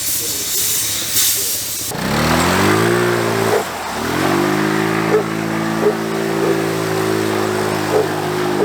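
Compressed air hissing in pulses, blowing out an air filter. About two seconds in it cuts to a small engine that revs up, dips, then settles into a steady idle with a light tick repeating about every two-thirds of a second.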